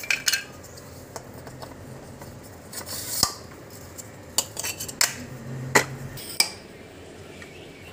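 Scattered clicks and light clattering knocks, about half a dozen, as bowl-and-impeller stages of a V4 submersible pump are slid down the stainless shaft and seated one on another, plastic impellers knocking against the bowls.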